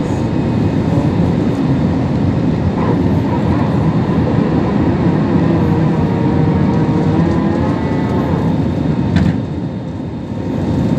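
Steady low rumble of an Airbus A320-family airliner's jet engines at takeoff thrust, heard from inside the cabin over the wing as the plane lifts off and climbs. One brief sharp click comes late on.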